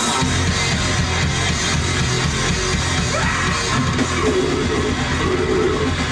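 Rock band playing loud and live: distorted electric guitar, bass and drums, with shouted vocals.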